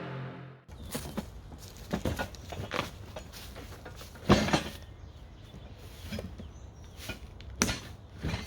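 Music cuts off under a second in, followed by scattered light knocks and taps over a low rumble, with the sharpest knock about four seconds in.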